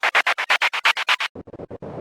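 Synthetic white-noise sound effect chopped into rapid, even pulses of bright hiss, about seven a second. About a second and a quarter in it cuts to a duller, lower-sounding noise stutter with shorter, less regular chops.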